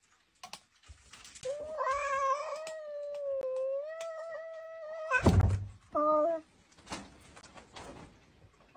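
A cat gives one long meow of about three and a half seconds, then there is a loud thump, followed by a short second meow.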